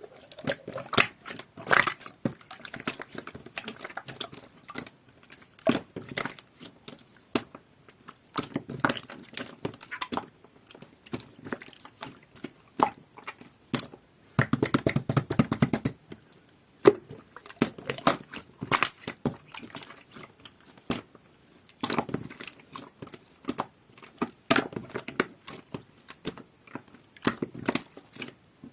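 Clear, jelly-textured glitter slime being squished and pressed by hand, with many small sticky clicks and pops from trapped air and a few longer squelches.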